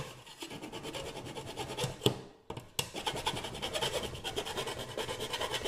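Hand file rasping along the edge of a sheet-metal scooter fender, knocking down burrs left from drilling. Fast scraping strokes, with a short break a little over two seconds in before the filing resumes.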